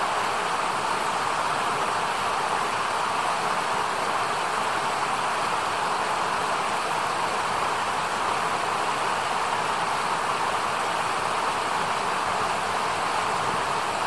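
Shallow mountain river running fast over rocks and stones: a steady, even rush of water.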